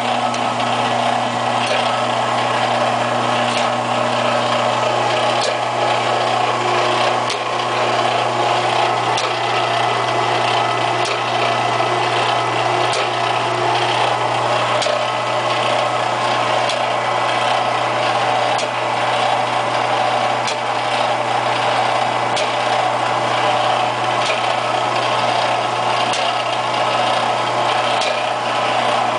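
HEUI injector test bench running steadily, its motor-driven hydraulic pump humming and the injector being operated under test. A faint tick comes roughly every two seconds.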